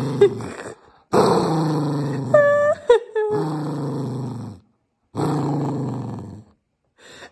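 Cavapoo puppy growling in long, drawn-out grumbles with short pauses between, one broken midway by a brief higher note. It is a protest growl at being disturbed from cuddling.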